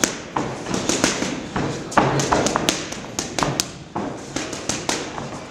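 Boxing gloves striking focus mitts during pad work: a quick, irregular string of sharp smacks, about three to four a second.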